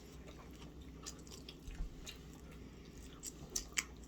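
Faint chewing and eating sounds: a few scattered short sharp clicks and smacks over a quiet background.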